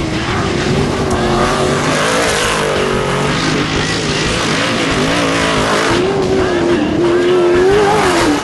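Off-road race vehicle's engine running hard, loud, its pitch wavering up and down.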